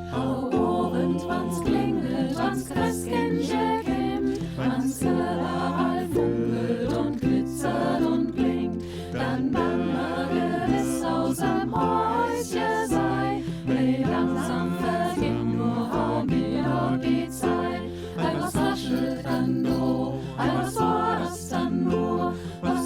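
Choir singing a Christmas song in close vocal harmony.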